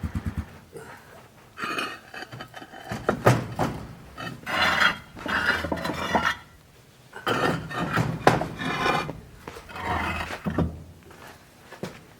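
Dishes, pots and utensils clattering and knocking in a kitchen, in several bursts with short pauses between.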